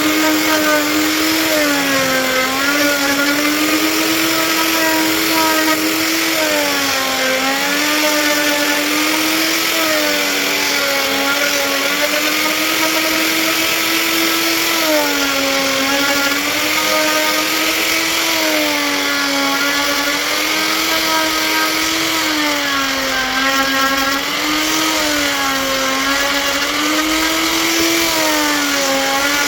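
Electric power tool motor running continuously. Its pitch dips and recovers every two seconds or so as it cuts into the wood under load.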